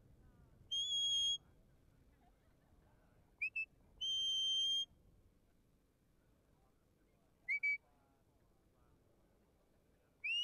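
Sheepdog handler's whistle commands to the working dog: a long steady high whistle, two short rising chirps, a second long steady whistle, two more short rising chirps, then a final whistle that rises and holds near the end.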